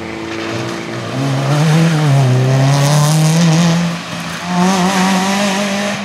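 Small Fiat rally car's engine pulling hard at high revs. Its pitch climbs in the first couple of seconds. The engine briefly falls off about four seconds in, then picks up and pulls again.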